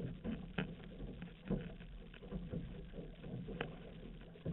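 Outrigger canoe moving under paddle: water splashing and rushing along the hull, with a surge roughly every second as the paddles pull through.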